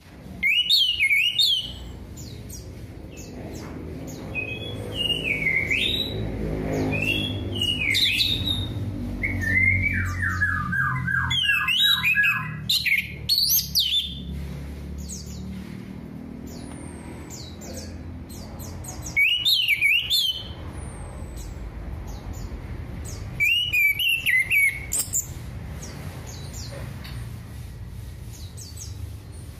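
Orange-headed thrush singing: loud phrases of whistles that slide up and down in pitch, with a quick run of falling notes near the middle, separated by pauses of a few seconds. A low hum runs underneath.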